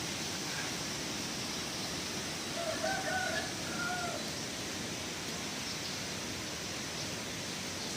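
A rooster crowing once, about two and a half seconds in, a pitched call of about a second and a half, over a steady background hiss.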